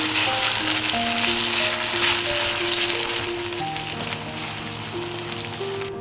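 Spaghetti in tomato-bacon sauce sizzling in a frying pan as it is tossed with tongs, the sizzle fading over the last couple of seconds. Soft background music plays under it.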